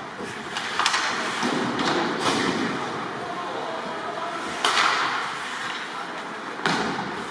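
Ice hockey play in a rink: about four sharp knocks of puck and sticks against the boards and ice, each with a short echo in the hall, over a steady background of rink noise and voices.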